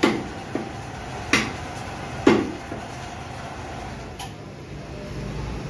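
Meat cleaver chopping beef on a wooden stump chopping block: three heavy chops, each under a second apart, in the first two and a half seconds, then a single lighter knock about four seconds in.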